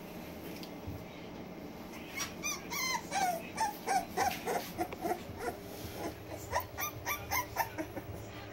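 Three-week-old American Bully puppies whimpering: a quick run of short, high calls, several a second, many falling in pitch, starting about two seconds in with a short lull past the middle.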